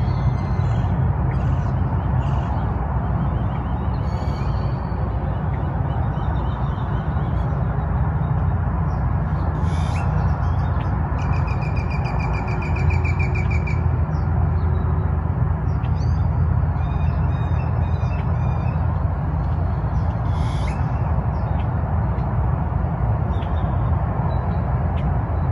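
Birds calling: scattered short calls and chirps, with a rapid trill of quickly repeated notes about halfway through, over a steady low rumble.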